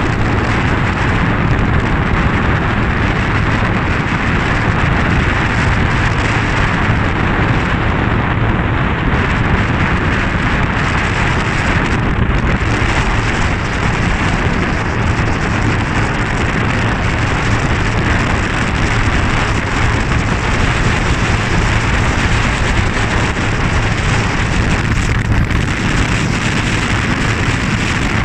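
Steady rushing noise of wind and water against a small boat under way, with a low engine drone underneath.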